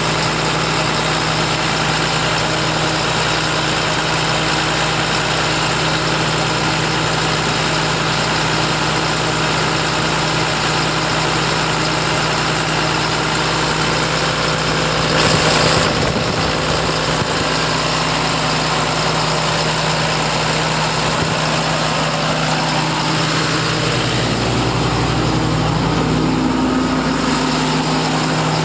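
John Deere 6081 inline six-cylinder diesel on a Sullair portable air compressor running steadily, with a brief hiss about halfway through. The engine's note shifts slightly near the end.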